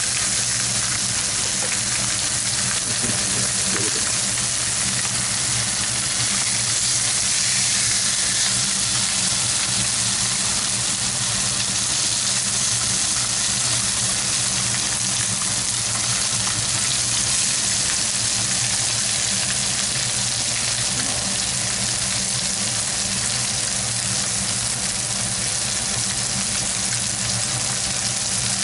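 Hamburg steak patties sizzling steadily in a frying pan, their fat and juices spitting, with a low steady hum underneath.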